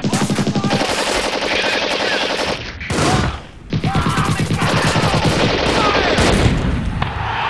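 Rapid machine-gun fire in long continuous bursts, breaking off briefly about three seconds in, with short whining tones sliding over it.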